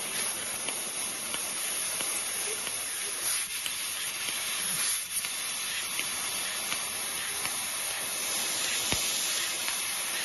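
Fiber laser cutting machine cutting thin 0.3 mm aluminium sheet: a steady, very high-pitched hiss of assist gas from the cutting nozzle, with faint light ticks scattered through it.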